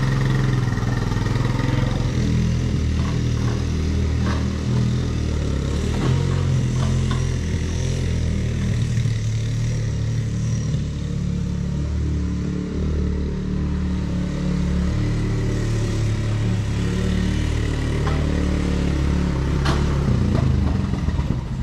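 Honda Recon 250 ATV's single-cylinder engine running as the four-wheeler is ridden around, its engine note shifting up and down with the throttle.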